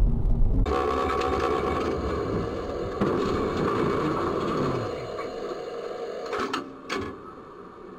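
A brief low road rumble, then the running gear and motors of a tram heard from its cab, clattering and whining, the low whine falling as it slows. Two sharp knocks come about six and a half and seven seconds in.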